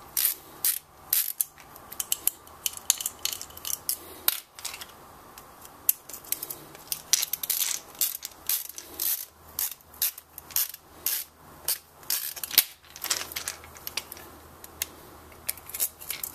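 Hand tools on a 2001 KTM 125 SX's aluminium carburettor: many quick, irregular metallic clicks and ticks of a screwdriver and small steel screws and fittings as the parts are worked off.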